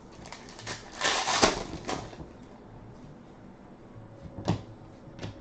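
Trading cards handled by hand as they are flipped through. About a second in there is a short run of sliding and rustling with quick clicks, then two single taps near the end.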